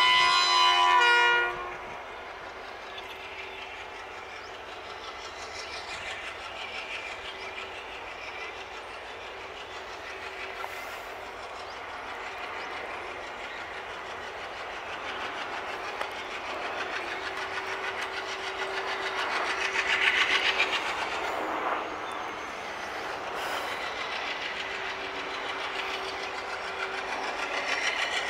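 A WDP-3A diesel-electric locomotive sounds its horn for about a second and a half, then its diesel engine chugs steadily under load as it pulls a passenger train away. The chugging grows louder about two-thirds of the way through.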